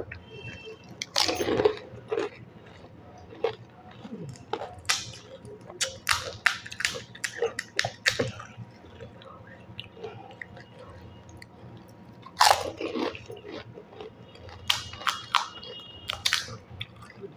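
Crisp fried wheat-flour panipuri shells cracking and crunching as they are broken open, bitten and chewed, in a run of short sharp crunches. Two louder, longer bites come about a second in and about twelve seconds in.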